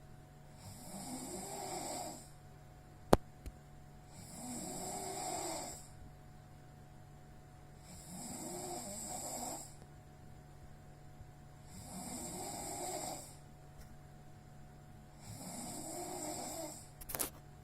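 A sleeping person snoring, five long snores coming about every four seconds, each lasting about a second and a half. A single sharp click sounds about three seconds in.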